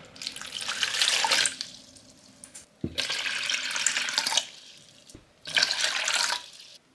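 Water poured from a glass measuring cup into a clear plastic bucket, splashing and filling it. It comes in three pours with short pauses between them.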